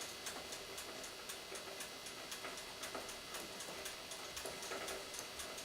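Faint, rapid, evenly spaced ticking.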